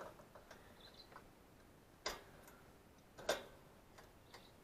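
Mostly quiet, broken by two sharp clicks, the first about two seconds in and the second a little over a second later, with a few fainter ticks between.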